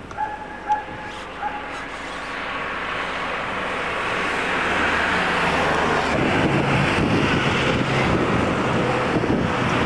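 Motor vehicle noise: engine and road noise swelling over a few seconds, then running on steadily. A few brief high chirps come at the very start.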